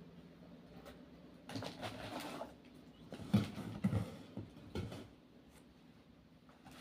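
Packaging and products being handled: a rustle, then a few light knocks as items are moved and set down.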